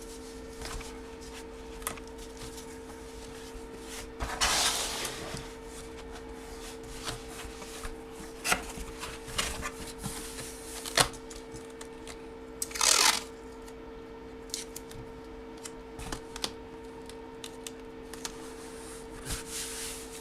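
Handling of sports-card packaging and graded photo slabs: light taps, clicks and rubbing, with two louder rustles of plastic or paper about four and a half and thirteen seconds in, over a steady low hum.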